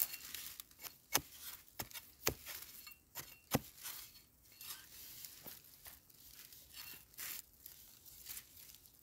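Digging wild yam tubers out of the soil by hand: a few sharp knocks of the digging tool in the first four seconds, then softer scraping and crumbling of earth.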